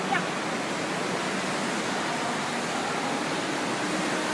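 Steady rushing wash of water filling an indoor wave-pool hall. A brief high chirp sounds just after the start.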